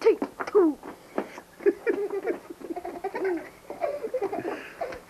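Children's voices, laughing and giggling, with short falling vocal sounds and chatter.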